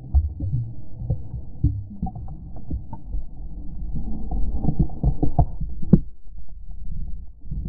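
Low rumbling and irregular dull thumps on the microphone, with nothing above a muffled low range.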